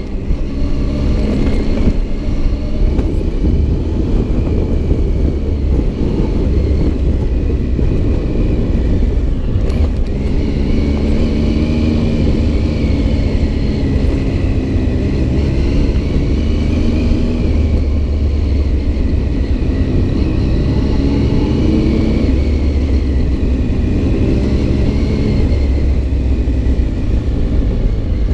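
Adventure motorcycle engine running while under way, its note rising and falling with the throttle over a heavy, steady low rumble.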